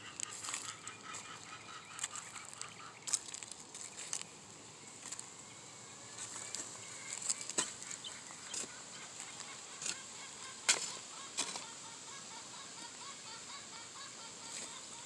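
A steel hoe chopping and scraping into dry, leaf-strewn soil in irregular strokes as earth is hilled up around young corn stalks. Bird calls carry in the background.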